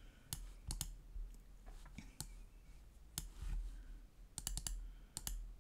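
Computer mouse buttons clicking, scattered single and double clicks with a quick run of several clicks about four and a half seconds in.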